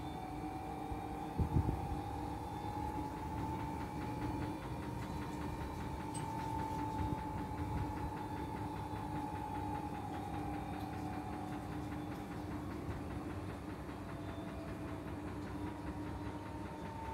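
An AEG Lavamat L88840 and a Whirlpool FSCR70420 washing machine running together on rinse-and-spin programmes. There is a steady motor hum and a motor whine that slowly rises and falls in pitch, with a single thump about a second and a half in.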